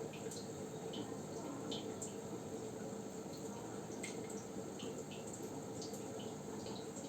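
Aquarium water dripping and plinking in small, irregular drops a few times a second over a steady pump hum.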